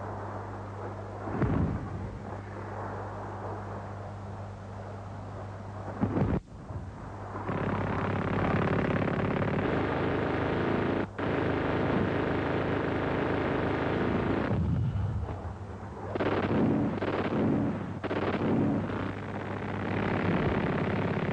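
Explosions and gunfire on an old war-film soundtrack, over a steady low hum. There are sudden blasts about one and a half and six seconds in, then denser, louder continuous noise from about seven seconds on.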